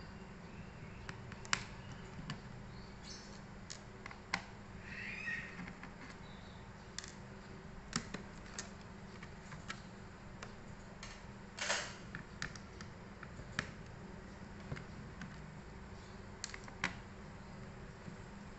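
Scattered small clicks and taps of hands and tools working on laptop parts during disassembly, with a brief scrape about twelve seconds in, over a steady low hum.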